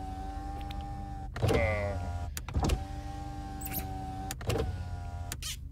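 A car's electric window motor whining at a steady pitch, cut off by a thump and a short grunt about a second and a half in, then whining again and ending with more thumps: cartoon sound effects from inside a limousine.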